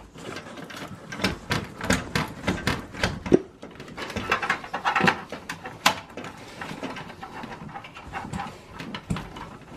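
Gloved hands unplugging power-supply cable connectors inside a steel computer case: a run of irregular clicks, taps and rustling.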